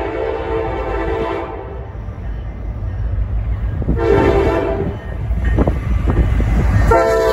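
Air horn of Norfolk Southern 1069, an EMD SD70ACe diesel locomotive, sounding as the freight train approaches and passes: a long blast that ends about a second and a half in, a short blast about four seconds in, and another blast starting near the end. Between the blasts the locomotive's engine and wheels rumble, louder as it comes close.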